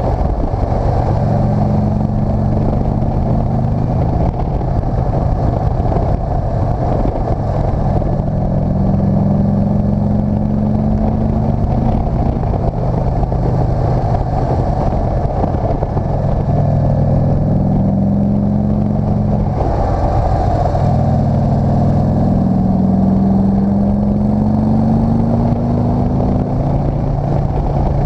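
Motorcycle engine pulling uphill, its pitch rising several times as it accelerates through the gears, with a brief drop about twenty seconds in. Steady wind and road noise runs under it on the bike-mounted microphone.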